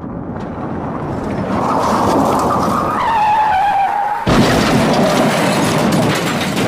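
A motor yacht running fast through waves: rushing water and wind with an engine whine that drops slightly in pitch about three seconds in. A little after four seconds it cuts abruptly to loud surf washing over rocks.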